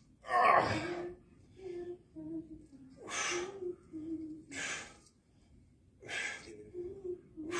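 A man's hard exhalations during one-arm overhead dumbbell presses, roughly one every one and a half seconds, the first and loudest about half a second in.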